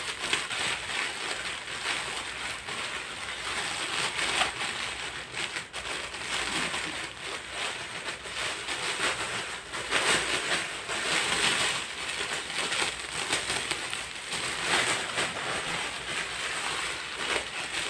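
Clear plastic packaging bag crinkling and rustling as it is handled and pulled open, louder at a few moments.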